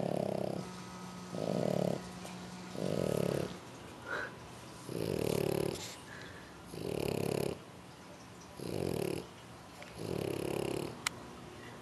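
A French Bulldog snoring in his sleep: a steady rhythm of snores, one every one and a half to two seconds, seven or so in all. Near the end comes a single brief click.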